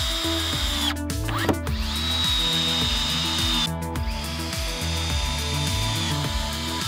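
Cordless drill driving screws into plywood, its motor giving a steady high whine in several runs with short pauses between them. Background music plays under it.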